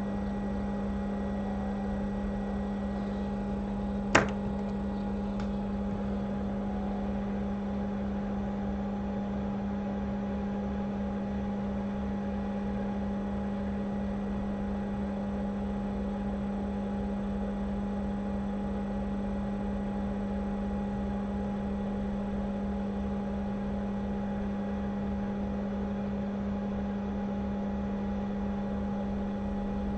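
Hot air rework station blowing steadily, a constant whirring hum, while heating the transceiver chip off an iPhone 6 logic board. A single sharp click about four seconds in.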